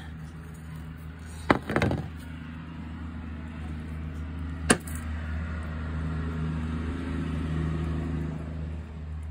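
A motor vehicle engine runs with a steady low hum that grows louder after about five seconds and cuts off suddenly near the end. Two or three sharp knocks come about one and a half to two seconds in, and a single sharp click comes near five seconds.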